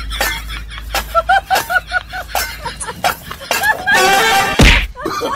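Steel dog bowl clanking and scraping on tiled steps, with a ringing clatter about four seconds in that ends in a loud bang. A person laughs in short bursts along with it.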